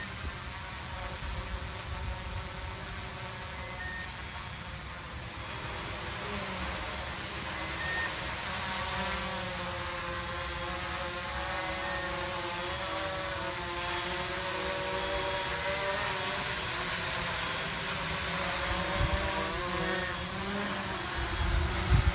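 Traxxas Aton quadcopter's propellers whining in flight under return-to-home autopilot, several pitches wavering up and down and growing slowly louder as it comes back. Wind rumbles and bumps on the microphone underneath.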